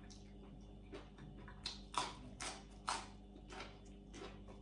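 Close-up chewing of raw okra: irregular crisp crunches and wet mouth clicks, a few a second, loudest about two and three seconds in.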